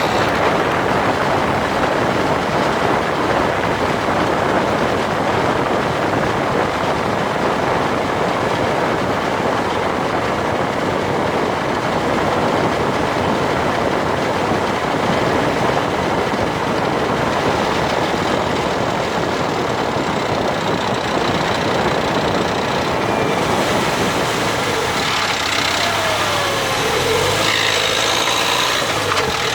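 Dacia Duster dCi 4x4 on the move, with steady engine and drivetrain noise that changes a few seconds before the end. This is the grinding that comes under acceleration in fifth or sixth gear between 1500 and 1800 rpm, which the owner suspects is a faulty drive shaft.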